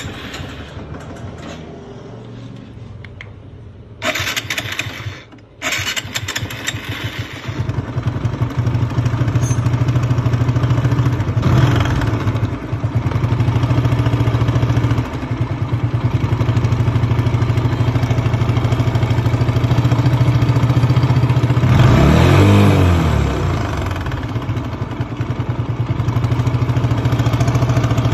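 A TVS Apache 160's single-cylinder engine being started, then running with the throttle blipped twice. The rough tick-tick noise it makes is what the mechanic later traces to a stretched cam chain.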